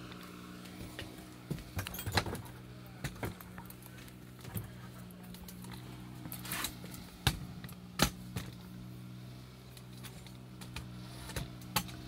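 A steady low mechanical hum, with scattered clicks and knocks from handling and movement, the sharpest two about seven and eight seconds in.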